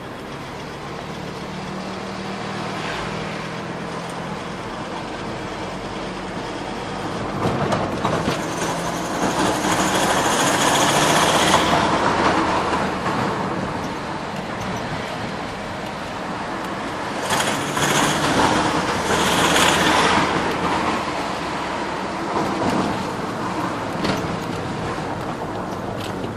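Volvo V70 D5's five-cylinder turbodiesel engine running with a strange noise that the owner puts down to the injectors, which began after they were calibrated. The engine twice runs louder for a few seconds, in the middle and again about two-thirds through.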